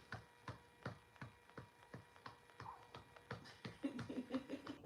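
A hand patting a baby's back in a steady rhythm, about three pats a second, to bring up a burp. A short low hum of a voice comes in near the end.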